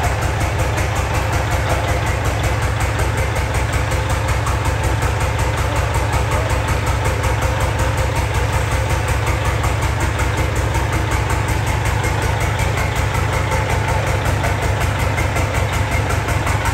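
Peterbilt 379's Caterpillar inline-six diesel idling steadily with the hood off and the engine bay open, as the truck is backed slowly away.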